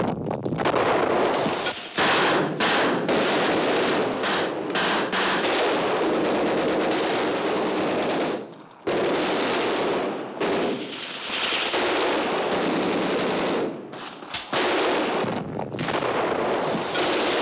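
A battle's dense, near-continuous gunfire, automatic weapons firing in long rapid runs. It drops off briefly about two seconds in, again near nine seconds, and again around fourteen seconds in.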